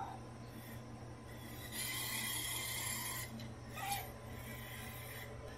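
TriloBot robot's drive motors running for about a second and a half, a faint raspy whir. A short faint squeak follows about a second later.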